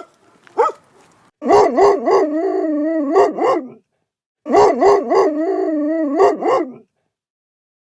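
A dog barking in quick, yelping succession that draws out into a wavering howl. The same passage plays twice, with a short gap between.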